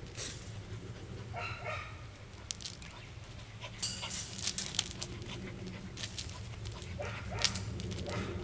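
Australian Shepherd puppy giving short whines, one about a second and a half in and more near the end, with scattered sharp clicks and a steady low hum underneath.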